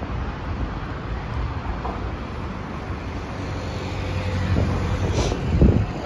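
Low, steady rumble of road traffic with wind on the microphone; one vehicle passing grows louder and peaks near the end.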